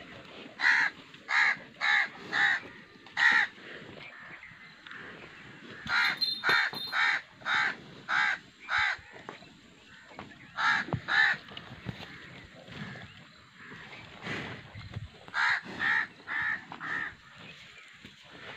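A crow cawing in four runs of short calls, two to seven caws to a run, with pauses of a few seconds between the runs.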